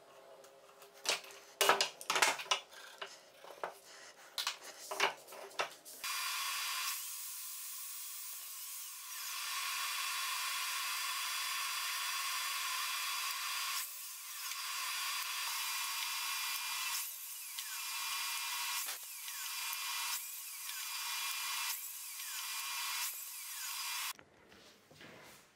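Wooden pieces knocking and clicking together for the first six seconds. Then a workshop power tool starts and runs steadily for about eighteen seconds, with a few brief dips and pitch sweeps, and stops shortly before the end.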